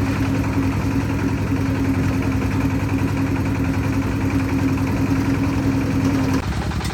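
Concrete mixer's engine running steadily, with a strong steady hum over it that cuts off suddenly near the end while the engine keeps running.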